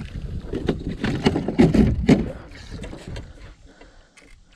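Fighting a hooked fish from a kayak: irregular splashes, knocks and clatter of rod, reel and hull, loudest about a second and a half to two seconds in.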